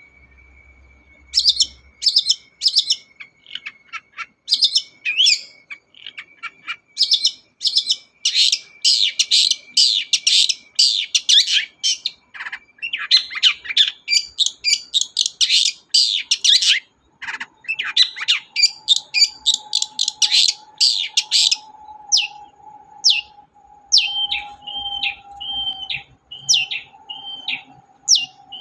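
A long-tailed shrike (cendet) singing a fast, varied run of sharp chattering chips and harsh notes. A thin steady tone sits underneath, higher in pitch in the first half and lower from about the middle on. Near the end the song turns into a quick repeated short note.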